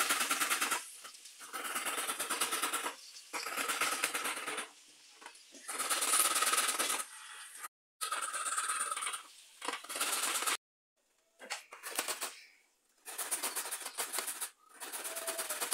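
Raw cassava root being grated by hand on a metal box grater, the root rasping over the grater's teeth in runs of rapid strokes about a second or two long, with short pauses between runs.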